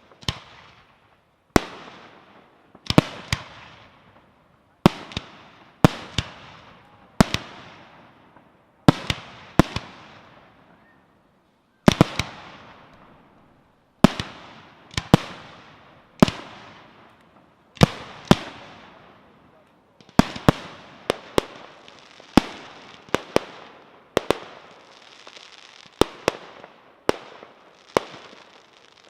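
Aerial firework shells bursting in quick succession: sharp bangs about once a second, often two close together, each trailing off in a fading crackle and hiss, with a denser stretch of crackling near the end.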